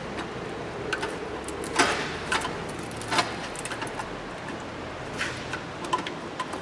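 A handful of short clicks and knocks of hands working the diesel fuel filter and its plastic clip-on fuel-line connectors, the loudest a little under two seconds in.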